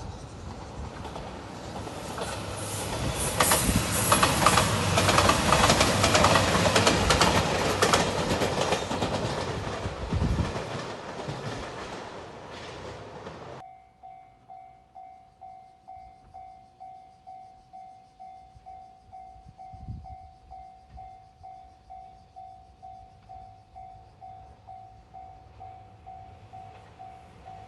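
A JR Shikoku 2700-series diesel express train passing a level crossing at speed, a loud rush of wheels and engines that fades away over about ten seconds. After an abrupt cut, the level-crossing alarm rings on its own, an electronic ding repeating a little under twice a second, and the noise of a train starts to rise again near the end.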